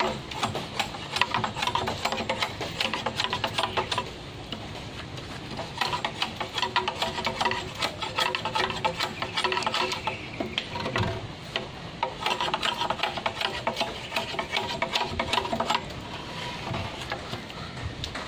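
Machete blade scraping along a green bamboo pole in rapid strokes, stripping off branch stubs and rough skin. The strokes come in runs of about four seconds with short pauses between.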